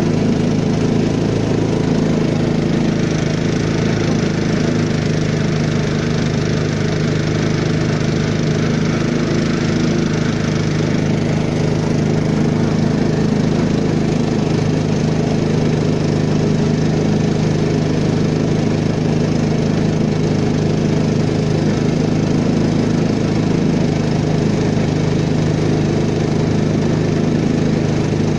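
Peque-peque longtail boat's small single-cylinder engine running steadily at cruising speed, with the rush of river water along the hull.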